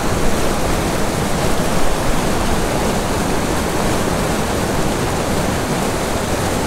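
Mountain river whitewater pouring over granite boulders into a pool: a steady, unbroken rush of water.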